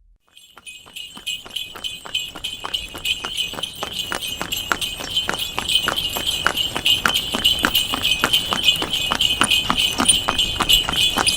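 Horse cart approaching: the horse's bells jingle continuously over quick, even hoof clops of about four a second, growing louder after starting about half a second in.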